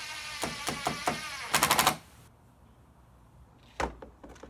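Impact driver driving a 1.5-inch screw into the wooden chair leg: the motor whine slowly falls in pitch, then the driver breaks into a rapid hammering rattle as the screw seats, and stops about two seconds in. A single knock follows near the end.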